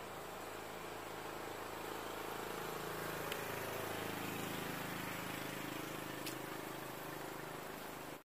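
A motor engine running with a steady hum, growing louder through the middle and then easing off, over outdoor hiss.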